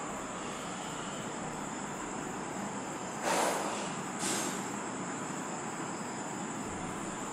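Steady background noise with a thin, high steady whine, broken by two short, louder swishes a little over three and four seconds in.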